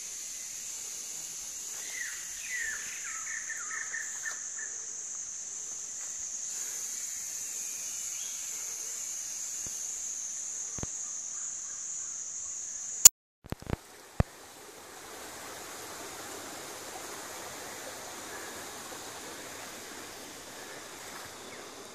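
Jungle insects holding one steady high-pitched whine, with a bird's quick run of short falling chirps a few seconds in. About halfway through, the whine breaks off with a few sharp clicks and a soft, even rushing like flowing stream water takes over.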